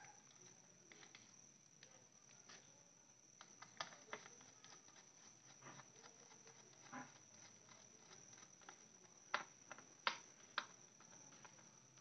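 Faint, scattered clicks and scrapes of a screwdriver turning the terminal screws on an automatic pump controller's wiring block, with a few sharper clicks toward the end.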